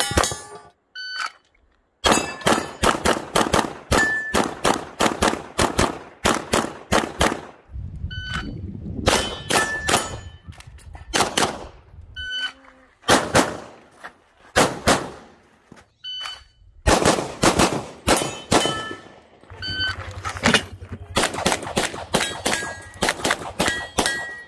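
Pistol gunfire in fast strings of several shots a second, with steel targets ringing after hits.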